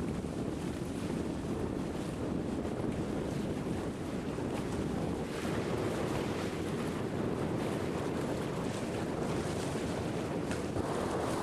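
Steady wind buffeting the microphone over the rush and wash of water along the hull of a sailing boat under way.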